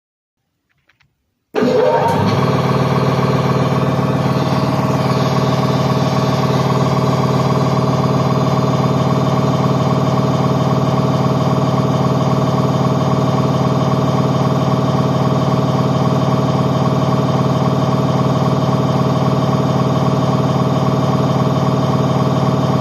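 Air compressor kicking on abruptly after a couple of faint clicks, then running steadily with a strong low hum and an even mechanical drone.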